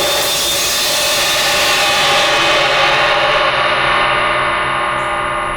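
Vintage 18-inch A. Zildjian & Cie cymbal, its crack repaired, ringing out with a dense shimmering wash. The high shimmer dies away over the second half while the lower tones keep sounding.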